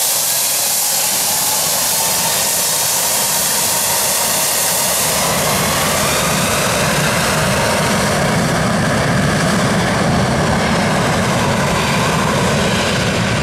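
Boeing 757-200's twin jet engines spooling up from idle to takeoff thrust at the start of the runway. A steady high hiss and whine runs throughout, and a deeper engine sound grows from about five seconds in, along with a faintly rising whine.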